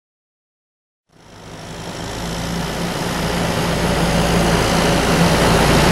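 John Deere 6410 tractor's diesel engine running at a steady speed, growing louder as the tractor comes closer. It cuts in suddenly about a second in.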